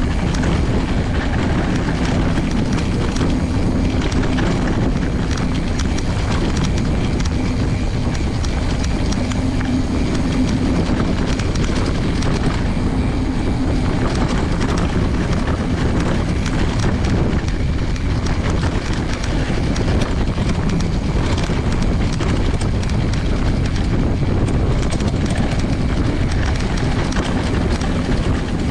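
Knobby mountain-bike tyre rolling over a dirt track: a steady rumble of tyre noise with rattling from the bike and wind on the microphone.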